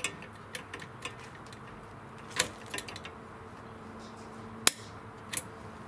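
Pliers and a small steel E-ring clicking against the pin and bracket of a push reel mower as the ring is pressed on to hold the handle. There are a few scattered metal clicks, with one sharp click about three-quarters of the way through.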